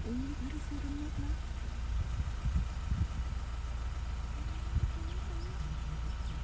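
Car engine and road rumble heard from inside a moving vehicle, a steady low drone with a few knocks from bumps in the middle.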